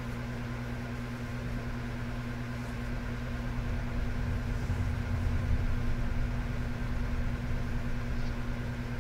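Electric fan running steadily: a low, even hum that swells slightly around the middle.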